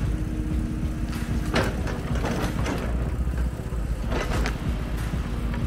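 A heavy machine's engine running steadily, with two short rasping bursts about one and a half and four seconds in.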